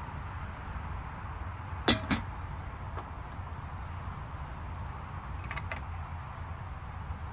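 Stainless steel camping kettle lifted off a brass spirit burner and set down on a wooden table with two sharp metallic knocks about two seconds in. A few seconds later come a few light metal clinks as the burner's brass snuffer cap is put over it to put out the flame. A steady low background rumble runs underneath.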